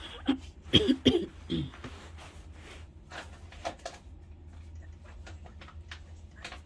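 A person coughing about three times, short and sharp, about a second in, followed by faint scattered clicks over a low steady hum.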